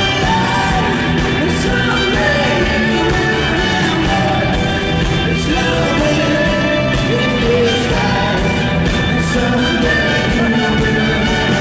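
Live band playing loud through a PA: electric guitars, bass and drums with sung vocals.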